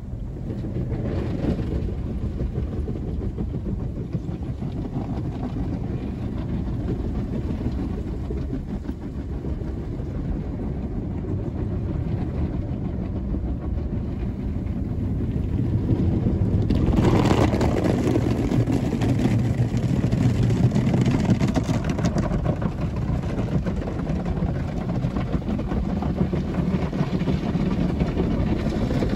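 Automatic car wash working over the car, heard from inside the cabin: a steady low rumble with a wash of spray and foam on the body and glass, growing louder about 17 seconds in.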